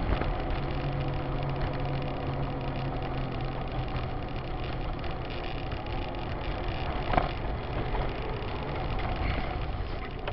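Car engine and road noise heard from inside the cabin of a moving car, with a steady low hum and a small knock about seven seconds in.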